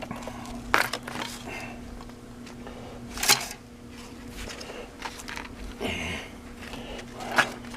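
A few sharp clicks and knocks of hand screwdrivers being picked up, handled and set down, spaced a couple of seconds apart over a low steady hum.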